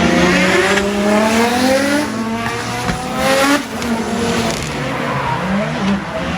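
RB25 straight-six drift car (a Nissan Silvia S14) at full throttle on track. The engine's pitch climbs and drops back several times, with tyres squealing and hissing as the car slides.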